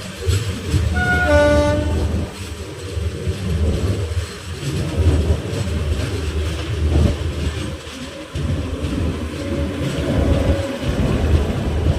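Train running with a steady low rumble and rattle, and a short horn blast about a second in.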